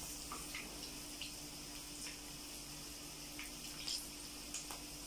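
Lumps of mushroom-and-cabbage batter deep-frying in hot oil in a kadai: a soft, steady sizzle with scattered small pops and crackles.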